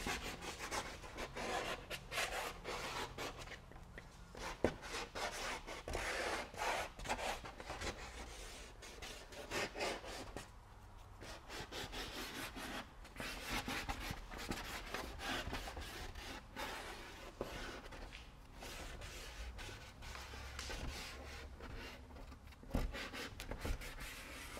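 A small piece of cardboard scraped and rubbed across paper, dragging paint over it in repeated, irregular strokes.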